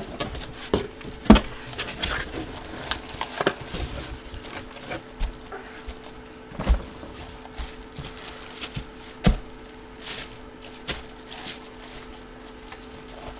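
Hands opening a cardboard box and its packing: scattered rustling, scraping and tapping, with a few louder knocks.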